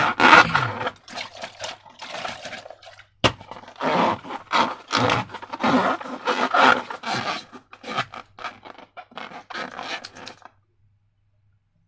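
Slime and rubber balloons being handled, scraping and rubbing in short irregular strokes that stop about ten and a half seconds in.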